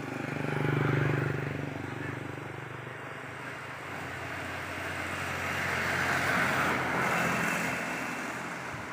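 Engine of a passing motor vehicle, its steady hum swelling to a peak about a second in and then fading, followed by a second, hissier swell of passing traffic several seconds later.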